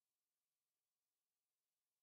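Silence: the audio track is empty, with only a faint steady noise floor.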